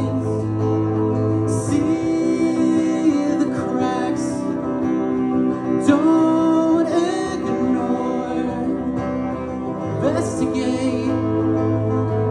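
A solo singer performing a song live, accompanied by guitar.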